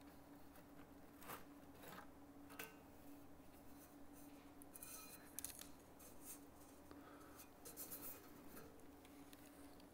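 Near silence with faint scrapes and a few light clicks as the thin metal intermediate plate of an opened Avid SC48 mixing console is lifted off, over a faint steady hum.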